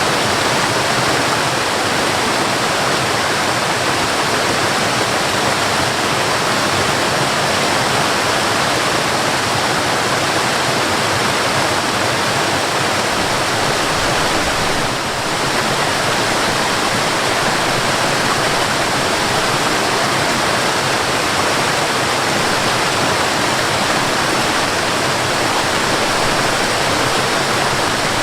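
Mountain waterfall: a steady, dense rush of falling water, with a momentary dip about halfway through.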